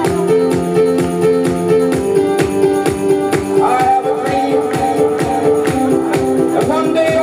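Music playing for a dance, with a quick steady beat.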